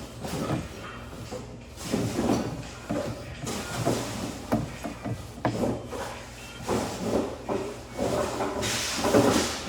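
Irregular rubbing and scraping of hands handling gas pipe fittings, with a brief hissing rush near the end.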